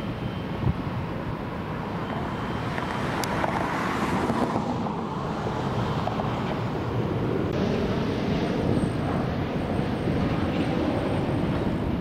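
Steady engine noise from heavy construction machinery working on a site, swelling briefly a few seconds in.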